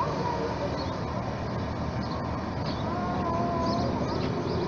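Steam-outline Hudswell Clarke diesel-hydraulic miniature locomotive moving slowly off a turntable, its engine giving a steady low rumble. A short wavering high tone sounds about three seconds in.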